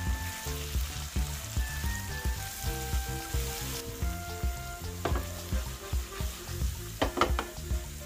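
Shrimp frying in garlic butter in a pan, a steady sizzle, with chopsticks stirring and tossing them; sharp clicks of the chopsticks against the pan about five seconds in and again around seven seconds. Background music with a melody plays under it.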